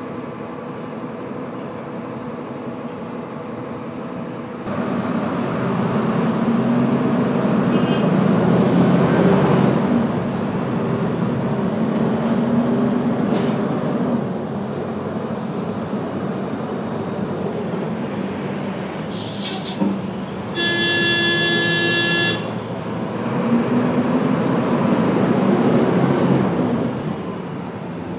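City bus ride: the bus engine running and repeatedly revving up and easing off as it moves through traffic, with street traffic noise around it. A vehicle horn sounds one steady blast of about a second and a half a little past two-thirds through.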